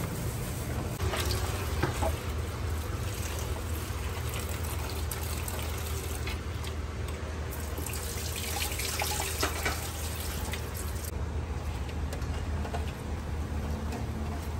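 Tap water running and splashing into a steel tray of water spinach leaves as they are rinsed by hand, with a few light clatters of the tray. The running water stops about 11 seconds in, leaving a low steady hum.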